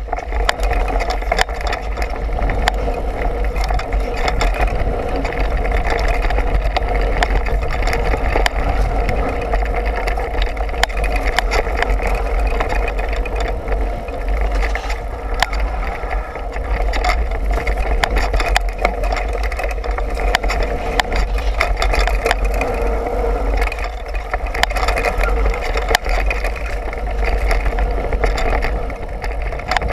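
Mountain bike riding down a dirt singletrack: wind rumbling over the action camera's microphone, tyre noise on the dirt, and the bike rattling and clicking over bumps throughout.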